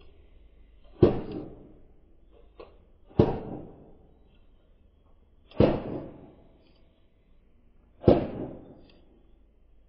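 Hatchet with a piece of firewood stuck on its blade slammed down onto stone paving to split kindling. There are four sharp chops, one every two to two and a half seconds.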